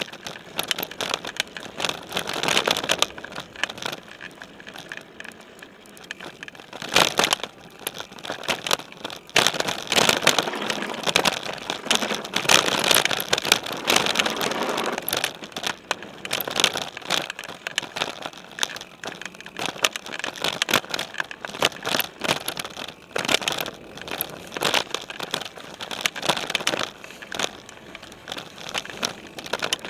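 Specialized Stumpjumper mountain bike ridden along a dirt singletrack strewn with dry leaves, heard from a camera mounted on its frame: a constant rattle and crackle of the tyres on leaves and dirt and the bike jolting over bumps. It gets louder in rough patches about seven seconds in and again from about ten to fifteen seconds.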